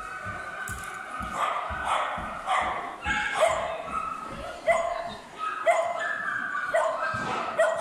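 Dog barking and yipping repeatedly, about once a second, in short high-pitched calls while it waits in a sit-stay at the agility start line.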